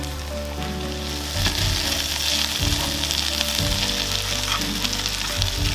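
Flour-dredged deer heart slices frying in oil in a skillet: a steady sizzle that grows louder about a second and a half in, with small clicks and scrapes as a utensil turns the slices. Background music plays underneath.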